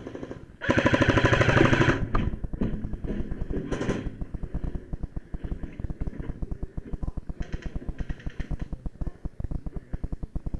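Airsoft gun firing on full auto: a long, rapid rattle of shots, loudest for about a second near the start, then a steady fast clatter that stops near the end.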